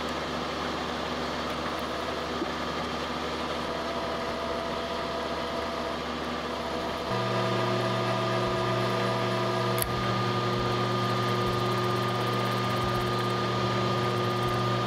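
Vertical milling machine running as its end mill plunges into a metal tab in place of a 5/8-inch drill bit: a steady machine hum that gets a little louder and deeper about halfway through the cut.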